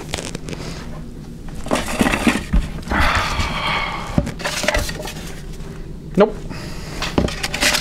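Paper rustling and crinkling as a hand rummages through a plastic recycling bin, with a few sharp knocks along the way.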